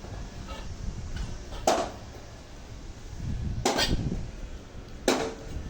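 Hammer blows on the steel track link and shoes of a Cat excavator: three sharp metal strikes about two seconds apart, each with a brief ring.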